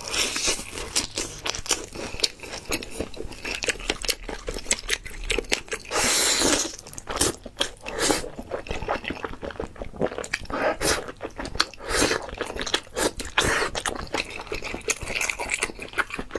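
Close-miked crunching and chewing of crispy fried chicken: a dense run of sharp crackles, with a louder crunch about six seconds in.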